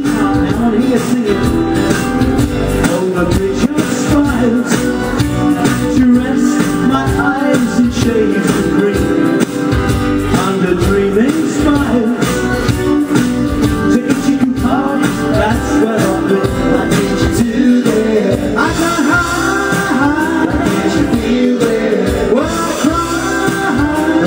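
Live rock band playing: electric guitars over a steady beat, with a man singing into a handheld microphone.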